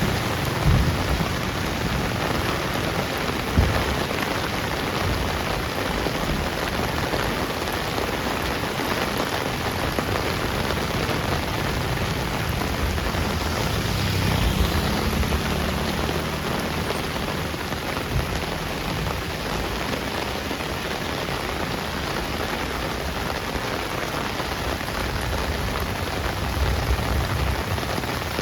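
Heavy rain falling steadily on a street, a dense, even hiss of drops on hard surfaces. A low rumble swells and fades around the middle, and a few brief low knocks sound near the start.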